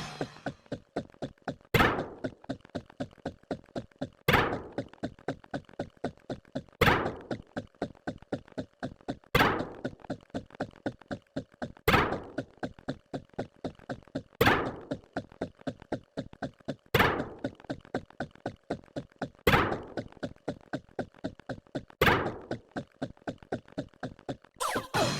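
A looping sound effect: short clicks at about four a second, with a louder sharp thunk every two and a half seconds.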